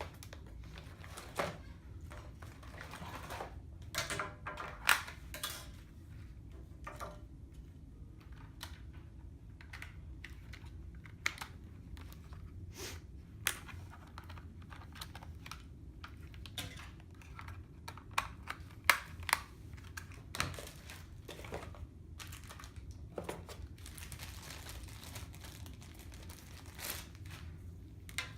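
Scattered plastic clicks, knocks and some rustling from handling the parts of a Qolsys IQ Panel 2 alarm panel as its tabletop stand is fitted, over a steady low room hum.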